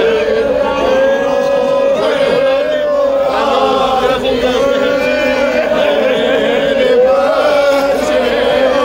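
Men's voices chanting a noha, a Shia Muharram lament, together. The chant is one long, slowly wavering line, with other voices rising and falling above it.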